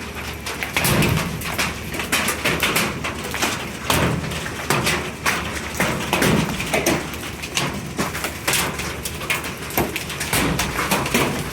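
Hailstones, pea to quarter size, pelting down: a dense, irregular clatter of sharp hits over a steady hiss of falling ice and rain.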